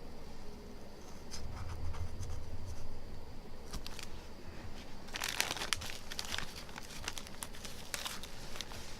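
Plastic knife scraping and peeling softened optical glue off a phone's LCD: a dry crinkling, tearing crackle that starts faint and turns dense about five seconds in, then thins out.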